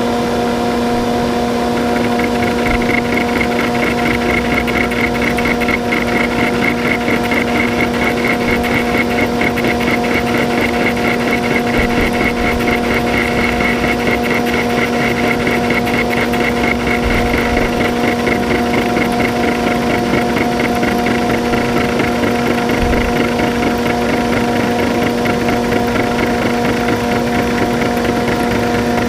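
A metalworking machine tool running, its motor giving a steady hum. From about two seconds in, a rapid, even pulsing joins it, typical of a cutter working on steel.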